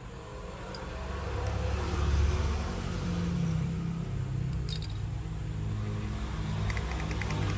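Toy train's motor and gears running with a steady low hum that swells up about a second in, with a few light plastic clicks near the end.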